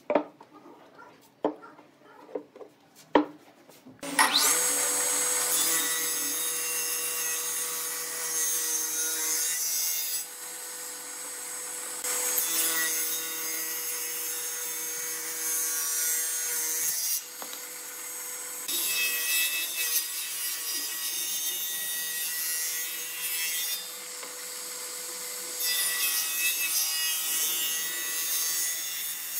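A few sharp knocks, then from about four seconds in a wood lathe runs with a steady hum while a turning tool cuts the spinning wood, the scraping noise swelling and easing in stretches of a few seconds.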